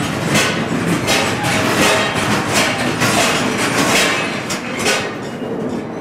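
Earthquake simulator sound effects recreating the Kobe earthquake: a loud, continuous rattling and clattering over a low rumble. It dies down about five seconds in as the simulated quake ends.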